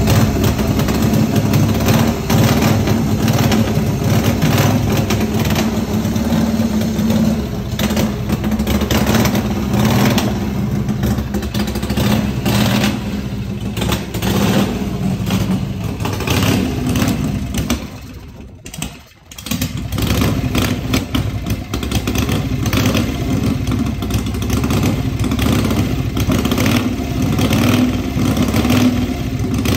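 Harley-Davidson V-twin motorcycle engine running, with throttle blips. The sound drops out briefly about two-thirds of the way through.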